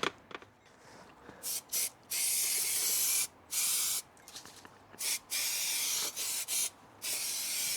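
Spray adhesive being sprayed onto ceiling boards in a string of hissing bursts, a few short spurts and several longer runs of about a second each with brief gaps between.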